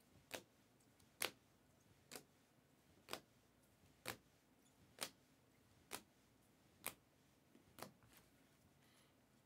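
Rigid plastic trading-card holders clicking against one another as cards are flipped through one by one: nine faint, sharp clicks at a steady pace of about one a second, stopping shortly before the end.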